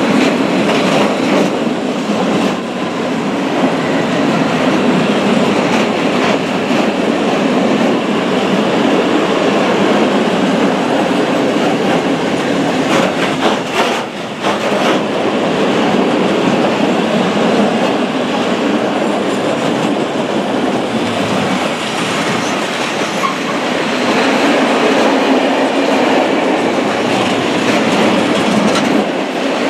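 A long freight train of open gondola wagons rolling steadily past close by, a continuous loud rumble of steel wheels on rail with clickety-clack as the wheels cross the rail joints.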